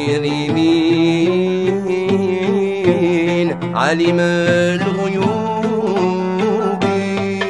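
Live Algerian chaabi music: plucked strings playing a melody over a sustained low note, with hand-drum strokes.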